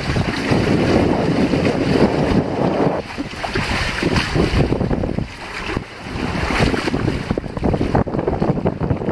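Wind buffeting the microphone in uneven gusts, over the wash of sea water around a sailboat under way.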